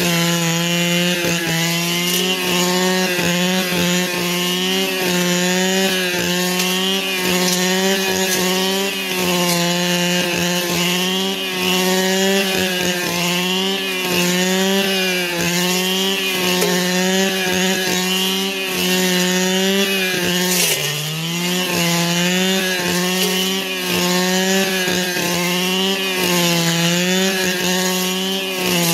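Two-stroke brush cutter running at high throttle, its engine pitch dipping and recovering every couple of seconds, with one deeper dip about twenty seconds in.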